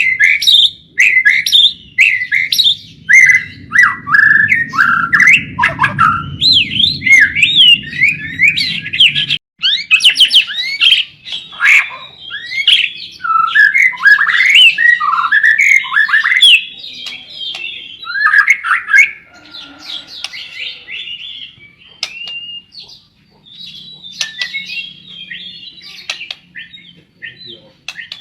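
White-rumped shama singing non-stop, a fast stream of varied whistles, slurred notes and chattering phrases. A low steady hum underneath cuts off suddenly about nine seconds in.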